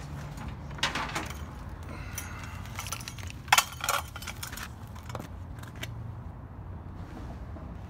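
Metal scrap clanking and rattling as pieces are moved about in a dumpster: a clatter about a second in and a louder metallic clang with ringing about three and a half seconds in, over a steady low rumble.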